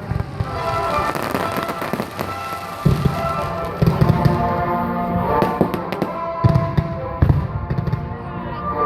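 Fireworks display: repeated bangs and crackles of bursting shells, with music playing underneath.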